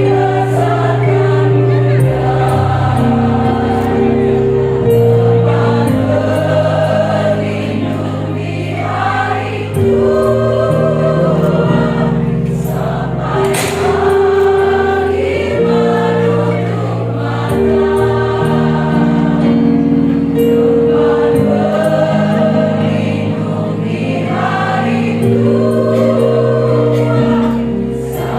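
Women's choir singing a song in parts over steady held chords.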